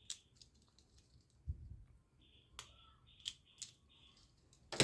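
Toy handcuffs being handled: a few scattered light clicks and a soft knock.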